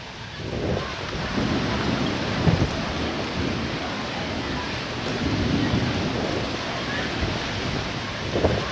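Thunderstorm: steady heavy rain with thunder rumbling and swelling several times.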